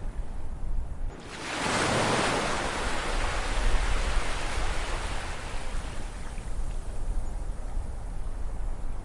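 Ocean wave breaking about a second in, a wash of surf that swells quickly and then slowly recedes, over a steady low rumble of sea.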